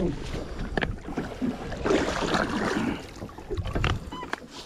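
Water splashing and sloshing alongside a small fishing boat on the open ocean, with wind on the microphone and a few sharp knocks or splashes.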